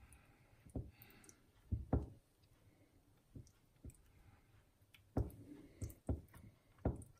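Irregular soft knocks and clicks of hands working raw chicken pockets and toothpicks on a kitchen surface, about a dozen in all, the loudest about two seconds in, five seconds in and near the end.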